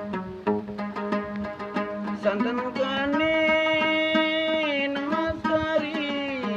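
A gambus, a plucked lute, played in a run of quick plucked notes, joined about two seconds in by a man's singing voice that holds one long note and then moves on in a wavering line near the end.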